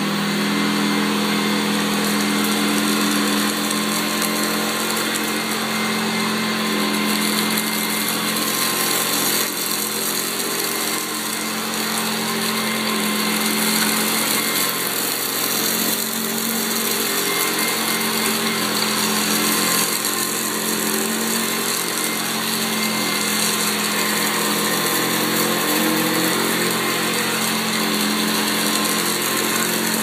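Hoover U4082 upright vacuum cleaner running steadily as it is pushed back and forth over carpet, a motor hum and whine that shifts slightly in pitch as the load changes.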